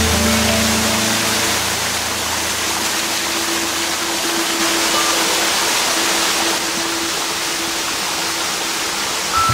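Steady rush of water from a small waterfall pouring over a concrete rock face, with faint held notes of background music underneath.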